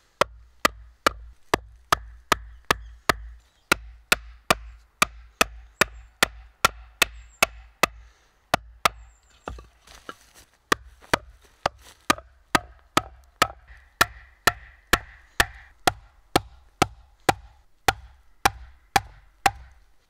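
Steady hammer blows, about two a second, on the top of a wooden post, driving its tenon down into the mortise of a pine foot beam until the joint seats. There is a short break about halfway through.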